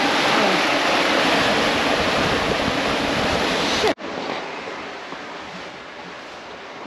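Sea water rushing and foaming past the hull of a Leopard 45 sailing catamaran under way, with wind on the microphone, as a loud steady rush. It cuts off suddenly about four seconds in to a much quieter steady hiss.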